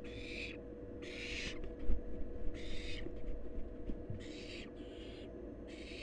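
Barn owl nestlings giving their rasping hiss begging calls, short hisses of about half a second repeated every second or so. A loud thump about two seconds in is followed by a second or two of scuffling knocks on the nest-box floor, over a steady low hum.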